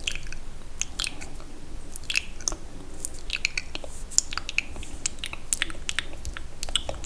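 Sticky, wet mouth sounds: irregular clicks and smacks of lips and tongue, several a second.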